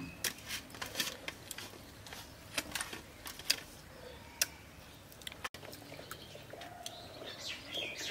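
Crab shell cracking and crunching as cooked crab is picked apart and chewed by hand: a run of sharp clicks and cracks over the first five seconds. After that it turns quieter, with a few faint animal calls.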